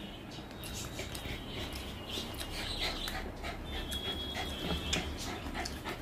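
Fingers squishing and mixing rice with chicken curry gravy on a plate, with wet clicks and chewing sounds. A thin high whine comes and goes twice in the middle.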